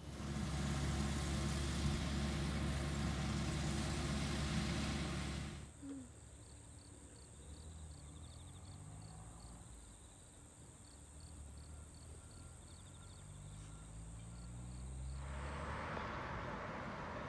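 A loud steady low hum for about five seconds. After a cut, a combine harvester's engine runs faintly in the distance, its pitch drifting, while crickets chirp steadily at about two or three chirps a second. Near the end a wider rushing noise takes over.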